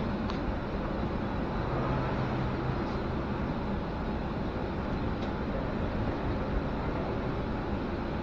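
Steady low rumble of a city bus's engine and running gear, heard from inside the passenger cabin.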